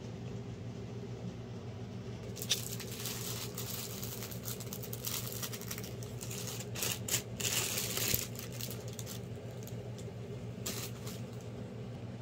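Plastic packaging rustling and crinkling as it is opened, in spells from about two seconds in to about nine seconds and again briefly near the end, over a steady low hum.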